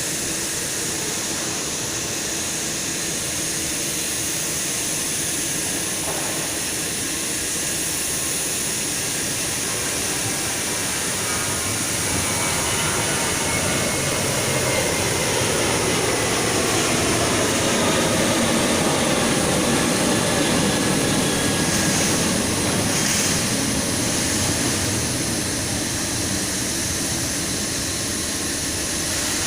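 Jet airliner engines roaring as the plane passes, growing louder to a peak about two-thirds of the way through and then fading, with a whine that slides down in pitch as it goes by.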